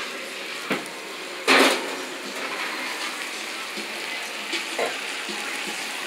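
Oil sizzling steadily around a whole parrot fish frying in a black cast-iron skillet, with a sharp clatter about a second and a half in and a couple of fainter knocks.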